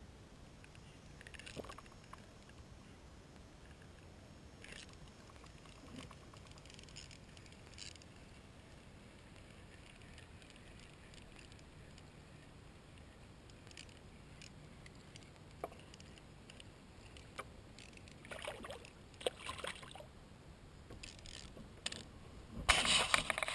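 Small knocks and clicks on a fishing kayak on calm water, then near the end a short loud splash as a small sunfish is pulled thrashing out of the water on the line.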